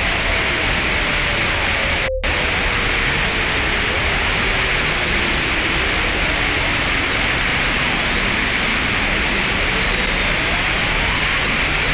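Synthesized hiss like static, threaded with many faint whistling tones that glide up and down and cross one another over a steady high whine. It cuts out for a split second about two seconds in.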